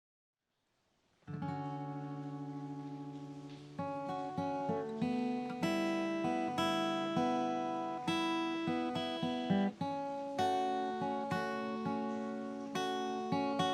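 Acoustic guitar music: picked notes and chords in a steady rhythm, coming in after about a second of silence and growing fuller about four seconds in.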